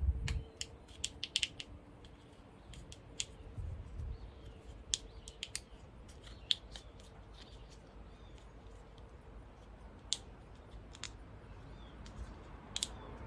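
Irregular sharp plastic clicks and handling noises as a split plastic protector sleeve is worked onto a new spark plug wire, with a few dull thumps near the start.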